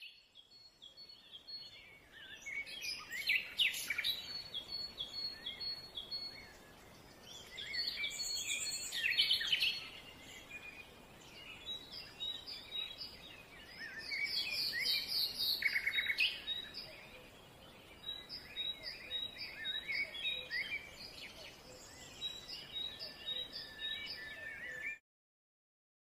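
Several wild birds singing and calling together: dense, overlapping chirps, repeated short notes and trills over a faint outdoor hiss. It stops abruptly about a second before the end.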